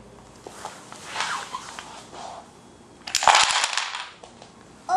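A Jenga tower of wooden blocks collapsing onto a hardwood floor: a sudden burst of clattering wooden clicks and knocks about three seconds in, lasting under a second, after a few softer knocks.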